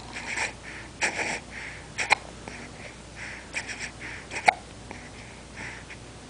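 Repeated short hiccups, coming irregularly about twice a second, with a couple of sharper, louder clicks among them.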